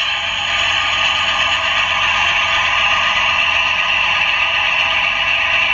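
Recorded car engine sound running steadily, played back through a phone's small speaker, so it comes out thin and tinny with no low end.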